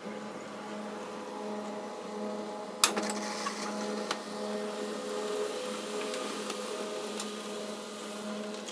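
HP LaserJet M1005 MFP laser printer running a test page: a steady motor hum with one sharp click about three seconds in, as the sheet feeds through and comes out into the tray.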